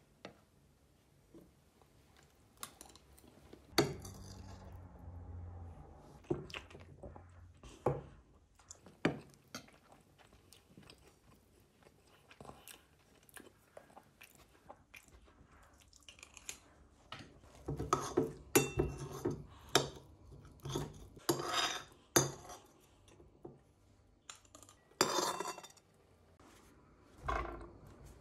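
Metal spoon clinking and scraping against a ceramic plate, mixed with chewing. The clinks come scattered at first, then in a quick run through the second half as the plate is scraped clean.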